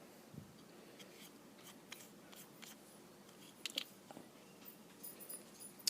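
Faint scattered clicks and scrapes of coin packaging being handled and opened by hand, with a brief louder cluster of clicks a little after halfway.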